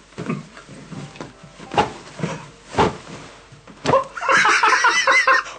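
A few short knocks and rustles, then people laughing, breaking out about four seconds in and carrying on.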